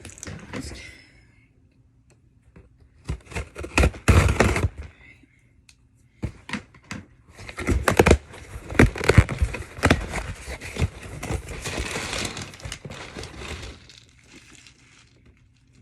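Packaging crinkling and tearing as a package is opened by hand, with sharp cracks among it. There is a short burst about three to five seconds in and a longer stretch from about six to fourteen seconds in.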